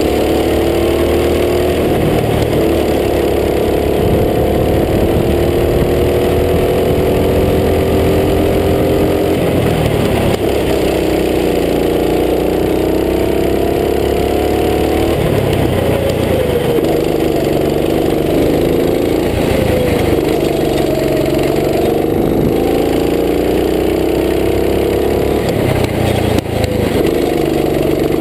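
Go-kart engine running hard on board, its pitch dropping as the throttle is lifted for the corners and climbing again on acceleration, several times over.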